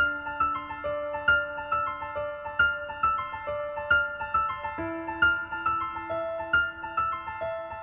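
Background music: a gentle piano or keyboard melody, with evenly paced notes of about two to three a second over held low notes.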